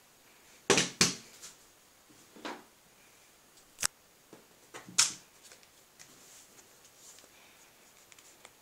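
Airsoft guns being handled: a series of separate sharp clicks and knocks, the loudest a pair about a second in and another about five seconds in.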